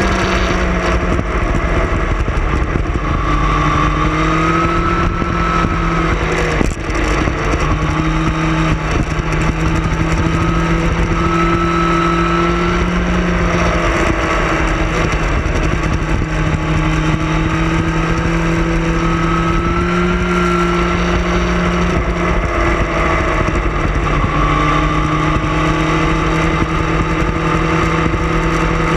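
Sport motorcycle engine running at a steady cruising speed, its pitch easing down slightly at the start and then holding with small rises and falls, with heavy wind rush over the bike-mounted camera's microphone.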